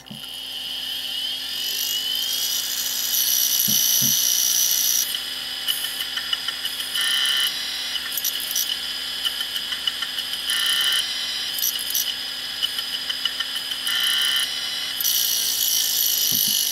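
Quantum ProDrive ELS 170 MB SCSI hard drive, lid off, spinning up with a rising whine. It then runs with a steady high whine while its head actuator seeks in stretches of rapid clicking and clunking. The heads are damaged and the platters scored after the drive's rubber part deteriorated, so the drive no longer boots or parks properly.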